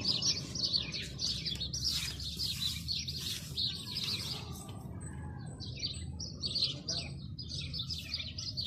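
A flock of small birds chirping and twittering together, a dense run of short high chirps that thins out briefly around the middle, over a steady low rumble.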